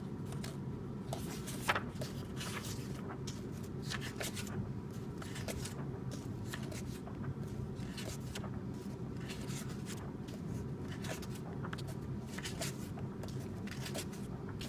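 Pages of a paper coloring book being turned and handled, with irregular short rustles and slides of paper, over a steady low hum.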